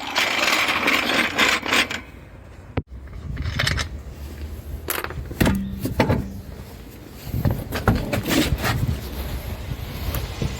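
Hand work on a car wheel with tools: a dense rustling, scraping burst in the first two seconds, then scattered short knocks and scrapes of tools and metal parts, broken up by abrupt cuts.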